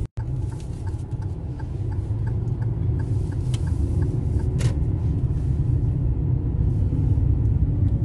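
Steady low road and engine rumble heard from inside a car driving slowly, with a run of faint regular light ticks in the first few seconds and a couple of short clicks near the middle. The sound cuts out for an instant right at the start.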